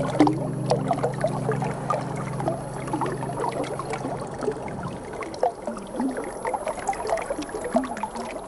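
Shallow river water trickling and babbling over gravel, with a steady low hum underneath that stops about four to five seconds in.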